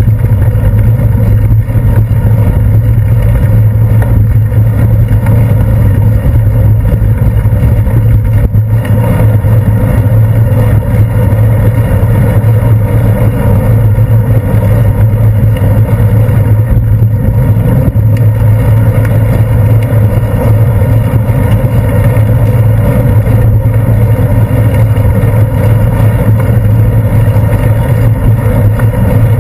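Steady, loud, muffled rumble picked up by a handlebar-mounted GoPro Hero 2 in its waterproof housing as a bicycle rolls along a wet paved path: road vibration and wind on the camera case, with no distinct events.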